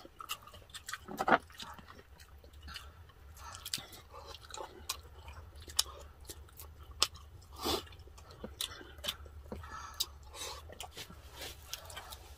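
Two people chewing and biting into lechon pata, deep-fried pork knuckle, close to the microphone: irregular wet mouth sounds and crunches, the loudest about a second in and again near eight seconds.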